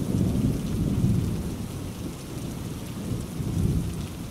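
Steady rain falling, with a low rolling rumble of thunder that is loudest in the first second and a half, eases, then swells again near the end.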